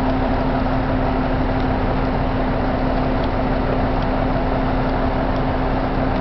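An engine running steadily with a constant hum under a steady rush of noise, with a few faint crackles.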